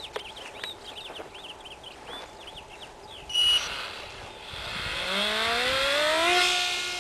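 Small brushless electric motor of a micro RC plane spooling up with a rising whine about five seconds in, then holding a steady high pitch. Before it, birds chirp, and a short loud high beep sounds about three seconds in.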